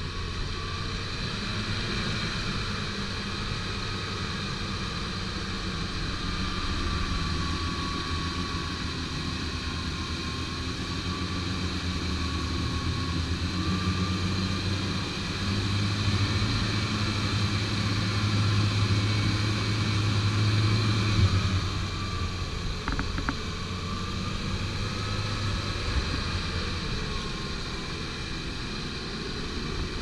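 UAZ off-roader's engine running under load as it crawls through a deep, muddy rut. It gets louder for several seconds past the middle as the engine works harder, then settles back.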